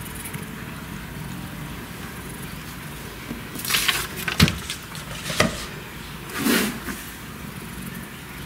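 A few brief rustles and sharp clicks, bunched near the middle, over a steady low hum.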